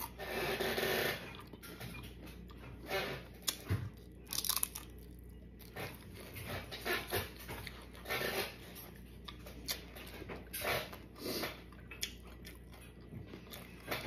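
A person biting into and chewing a loaded taco, with crunching. The loudest bite comes right at the start, followed by shorter crunches every second or two.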